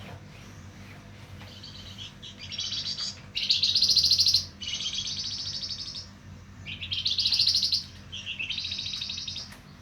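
Javan fulvetta (wergan jawa) singing in fast, buzzy trilled phrases, each about a second long and coming nearly back to back, five in all. A steady low hum runs underneath.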